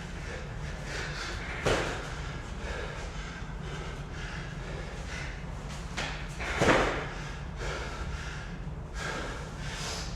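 A person breathing hard during a bodyweight and kettlebell workout, a soft rush of breath every second or so over a steady low hum. Two louder, sharper sounds come about two seconds in and again near seven seconds in.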